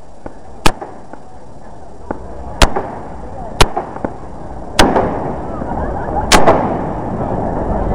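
Fireworks going off: five sharp bangs about a second apart, with smaller cracks between them. Crowd voices grow louder in the second half.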